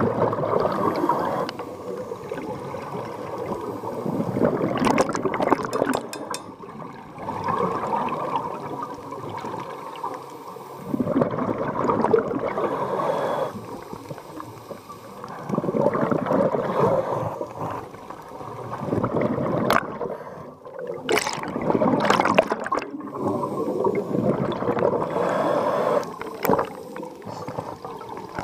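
Scuba regulator exhaust bubbles underwater, bubbling in bursts of one to three seconds every few seconds with each exhalation, with quieter gaps between breaths.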